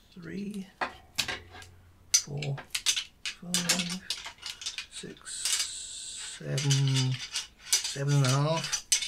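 Thick copper winding wire being unwound by hand from a transformer, clicking and rattling as each turn comes off, with a brief rasping scrape a little past halfway.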